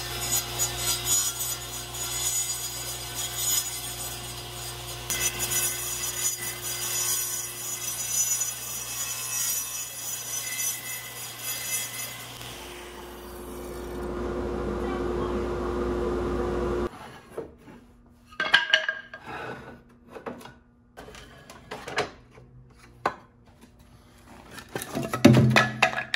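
Table saw blade cutting a square stick into a round dowel through a plywood dowel-making jig, a steady rasping cut over the motor hum; about twelve seconds in the hum drops out and a lower, steadier sound follows. From about seventeen seconds, wooden offcuts clatter and knock as they are handled on a scrap rack, the sharpest knocks near the end.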